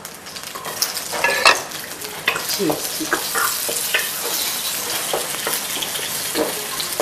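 Chopped bell peppers sizzling as they stir-fry in hot oil in a wok. A wooden spatula stirs them, scraping now and then against the pan.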